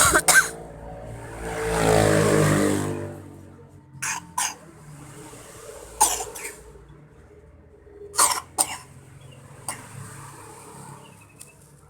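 A child with a cough and cold coughing repeatedly, mostly two quick coughs at a time, about every two seconds. A motor vehicle passes about a second in, its engine pitch falling as it goes by.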